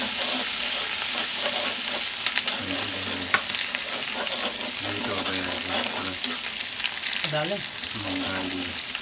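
Cumin with crushed ginger and garlic sizzling steadily in hot mustard oil in a kadhai, with a spatula clicking and scraping against the pan as it is stirred.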